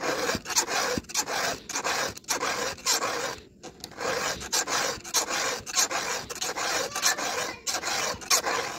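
Round chainsaw file rasping across a cutter tooth of a Stihl saw chain: repeated filing strokes, about two a second, sharpening the cutter.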